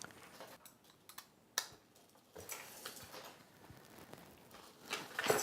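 A few scattered soft clicks and taps, with light rustling and a louder rustle near the end.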